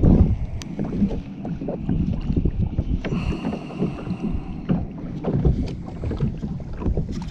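Wind buffeting the microphone and water slapping against a kayak's hull, with scattered small knocks and splashes as a hooked fish thrashes at the surface and a spinning reel is worked to bring it alongside.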